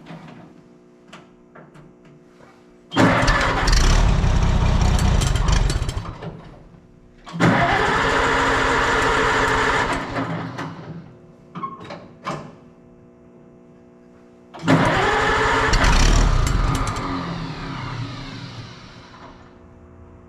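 Oliver 77 tractor's six-cylinder gasoline engine being cranked on the starter in three attempts of a few seconds each, failing to keep running; the last and longest attempt trails off slowly. A hard start, which the owner puts down to the engine not getting enough fuel.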